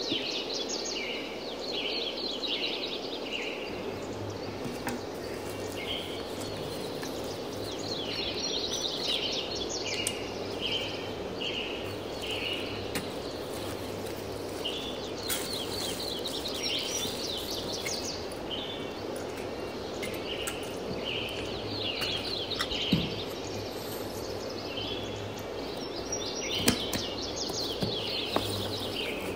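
Birds chirping in repeated short high phrases over a steady background hiss. A couple of sharp clicks or knocks come near the end.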